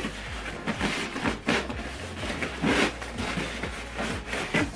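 Cardboard packaging being handled and pulled apart by hand: an irregular run of scrapes and rustles as the inner flaps and box pieces are tugged and slid out.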